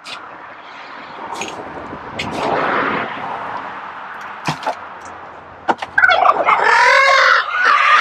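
A fork scrapes and rustles through old straw bedding. From about six seconds in, a tom turkey gobbles loudly over it.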